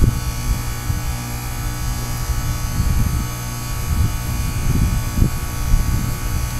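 Goodman heat pump outdoor unit running in its defrost cycle: a steady electric hum and buzz from the running unit, with an uneven low rumble underneath.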